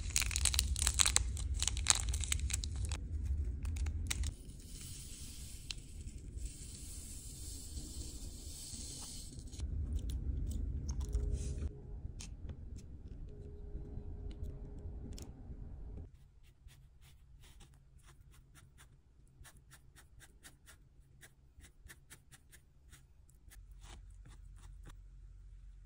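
A small plastic packet crinkling and fine granules pouring into a tiny plastic cup, with dense crackling and rustling. In the second half, light scattered clicks and scrapes as a straw stirs the mix in the cup.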